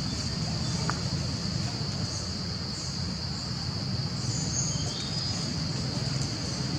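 Steady high-pitched chorus of insects, one unbroken drone, over a low steady hum, with a few short faint chirps about two thirds of the way in.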